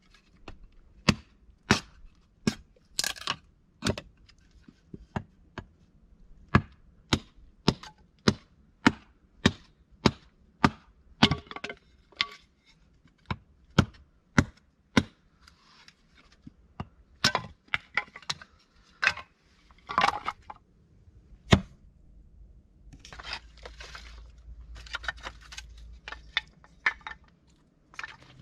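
Wood being chopped: sharp, regular chops about two a second, stopping a little over twenty seconds in, followed by scattered crackling and rustling.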